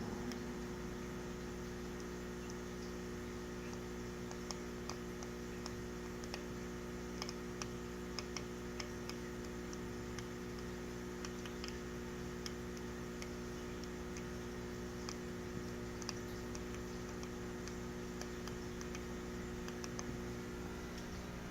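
Clown loaches clicking while they feed on algae wafers: scattered, irregular sharp clicks, sometimes in quick runs, thickest in the first half, over a steady hum.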